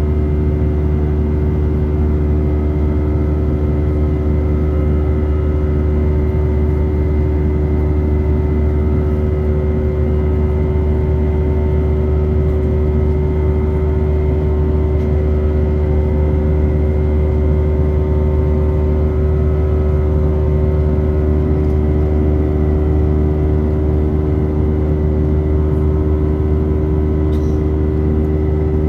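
Airbus A319 cabin noise: the airliner's jet engines and airflow make a steady, loud drone with a few constant whining tones over it.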